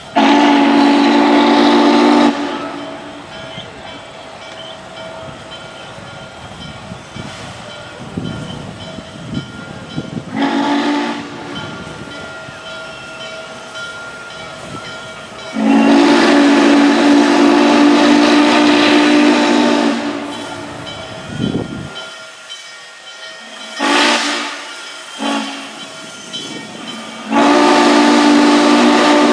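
Steam locomotive's chime whistle sounding a series of blasts, each a chord of several steady tones: a long blast at the start, a short one, a long held blast of about four seconds, two quick toots, and another long blast near the end. Between the blasts there is the hiss and rumble of the moving train.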